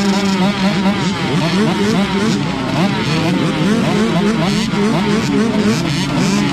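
A lineup of small two-stroke KTM youth motocross bikes revving at the starting gate. Many throttles blip at once in overlapping rising and falling wails while the riders wait for the gate to drop.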